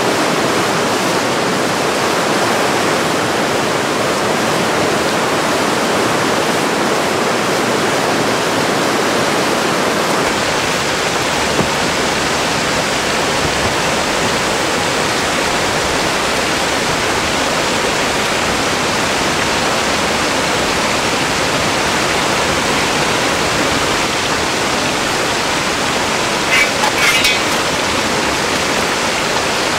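Waterfall rushing steadily, a dense even noise of falling water over rock. A couple of brief, sharp sounds come near the end.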